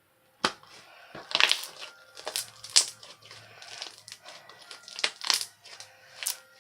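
Irregular crunching and crinkling: a string of sharp crackles at uneven intervals.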